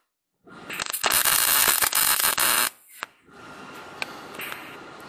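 Electric arc welding on a steel flat bar: a loud, even crackling hiss from about a second in that breaks off near the three-second mark, then a softer hiss.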